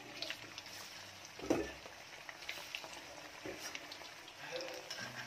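Floured chicken wing pieces just put into hot oil in a wok, sizzling steadily with fine crackles. There is a soft knock about a second and a half in.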